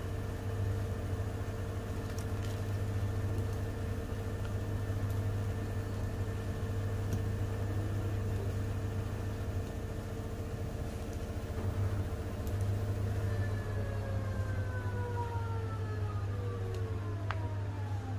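Panasonic NA-V10FX2LVT inverter front-loading washing machine spinning fast, set for a 1,200 rpm spin, with a steady hum and whine, running balanced. About two-thirds of the way through, the whine starts to fall in pitch as the drum begins to slow down.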